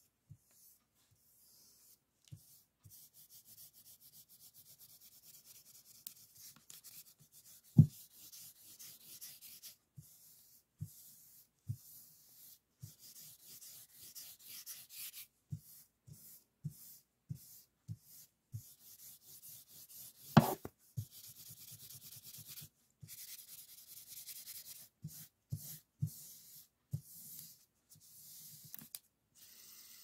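A plastic fidget spinner handled and spun on a sheet of paper, making a fast scratchy rubbing against the paper, with light taps throughout. Two louder knocks come about 8 seconds in and again about 20 seconds in.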